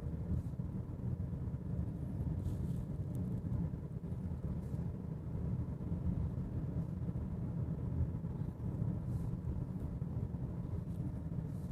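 Steady low road and tyre rumble inside the cabin of a moving 2018 Honda Accord.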